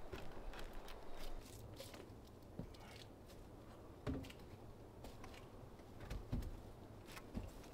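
Faint knocks and scuffs of a man climbing onto and shifting about on a wooden log-cabin roof, with a few dull thumps, the clearest about four and six seconds in.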